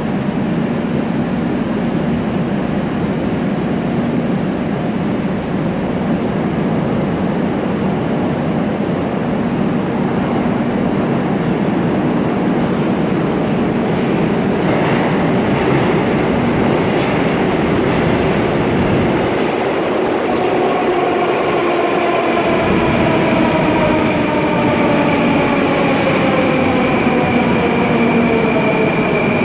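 Moscow Metro trains at an underground station: a steady loud rumble and hum throughout. From about two-thirds of the way in, a train pulls in on the far track, its motor whine of several pitches rising over the noise.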